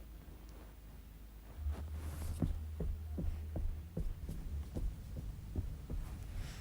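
Soft footsteps of a person walking carefully, trying to make little noise, about two to three steps a second starting about two seconds in, over a low rumble.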